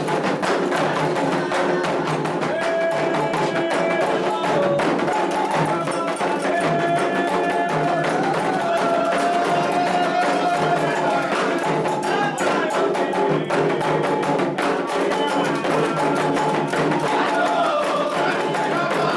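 Candomblé drumming on atabaque hand drums with a bell keeping time, playing a rum for the orixá Oxumaré, under a sung chant whose melody wavers and glides. The strikes run steadily and densely.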